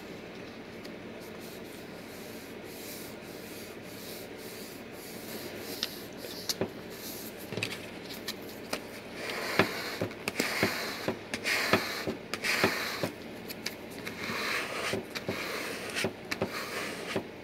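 Plastic decal squeegee rubbed back and forth over the transfer tape of a vinyl letter decal on a lifebuoy, working the adhesive down so the letters come off the backing paper. The rubbing is faint at first, with a few light clicks, and gets louder and more vigorous about halfway through in irregular scraping strokes.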